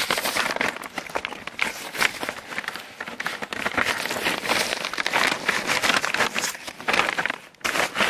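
Black plastic hive wrap rustling and crinkling right at the microphone as the winter jacket is slid down over a beehive, with many small crackles; it stops briefly near the end.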